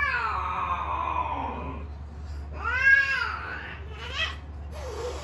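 British Shorthair cats yowling during mating. A long call falls in pitch over about two seconds, then a louder call rises and falls, followed by a short cry and a harsher, noisy sound near the end as the pair pull apart.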